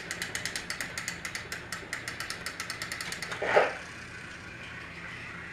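Battery-powered Trackmaster toy train running, its gears clicking fast and evenly at about seven clicks a second. About three and a half seconds in the clicking gives way to one short loud sound, and a steady hum follows.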